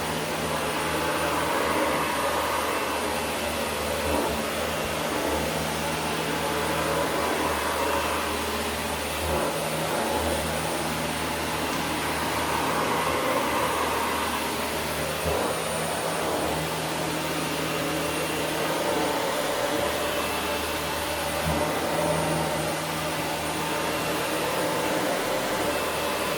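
Dyson vacuum cleaner running on carpet, a steady motor and airflow noise that swells and eases every few seconds as it is worked back and forth over the pile.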